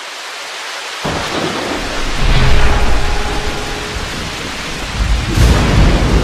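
Thunderstorm sound effect: a steady hiss of rain fading in, with thunder rumbling in about a second in and swelling again near the end.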